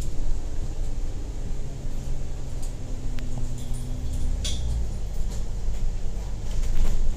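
Double-decker bus driving along, heard from inside on the upper deck: a steady low rumble of engine and road noise. A few short clicks and rattles sound around the middle.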